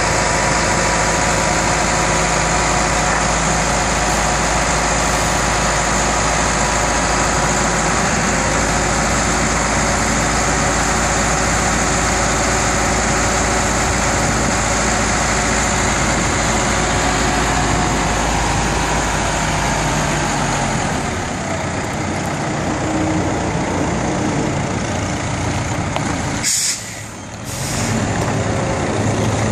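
Carelift Zoom Boom 10056 telehandler's engine running steadily as the machine drives, easing off about two-thirds of the way through. Near the end there is a brief sharp high-pitched hiss, then a moment's lull before the engine picks up again.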